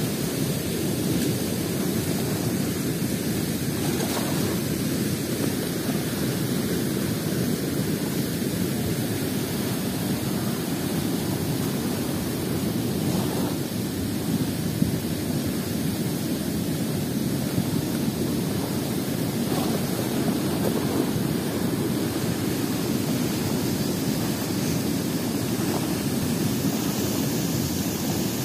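Steady rush of fast-flowing, foaming river water.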